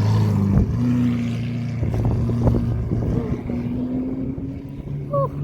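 Traffic: a motor vehicle's engine humming steadily as it passes, its pitch creeping slightly upward, with low wind rumble and a few knocks about half a second, two and two and a half seconds in.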